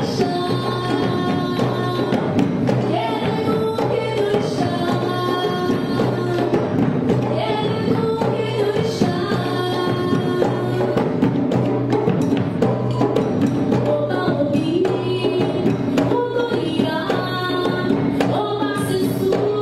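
Music with singing over percussion: a steady beat of frequent struck percussion under pitched melody lines.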